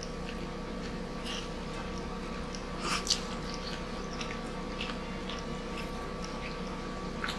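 Close-up mouth sounds of people chewing rice and grilled chicken, with short wet smacks and clicks, a couple of them louder about three seconds in. A steady hum runs underneath.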